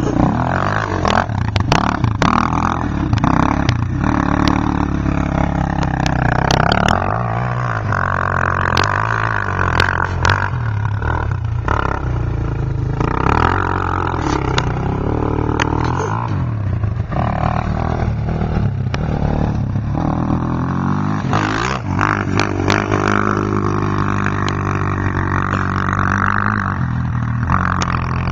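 Suzuki LT-Z400 quad's single-cylinder four-stroke engine through a full Yoshimura exhaust, revving up and backing off again and again while it is ridden. Sharp clicks are scattered through.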